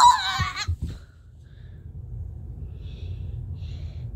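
A child's high wavering yell that breaks off about half a second in, then breathing close to the microphone, a few short breaths over a low rumble.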